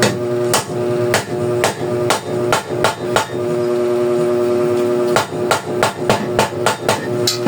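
Hammer striking a 34 mm bicycle headset bearing cup to tap it into the frame's head tube: a run of about eight blows, a pause of nearly two seconds, then a quicker run of about ten blows near the end.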